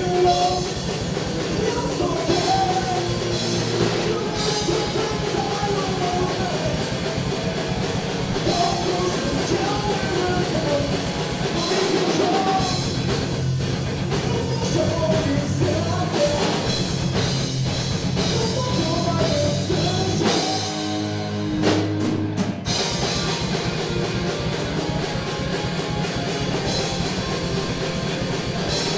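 Punk-rock band playing live: a singer over electric guitars, bass and a drum kit.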